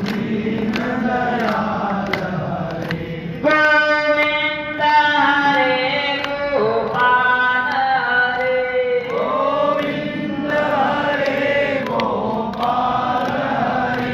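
Devotional Hindu chanting sung by voices in long, held melodic notes, growing louder and brighter about three and a half seconds in.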